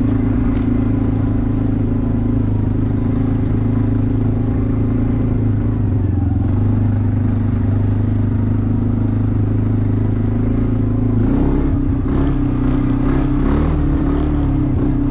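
ATV engine running steadily under way in low gear with an even note; about two-thirds of the way through the note shifts and turns uneven, with some clatter.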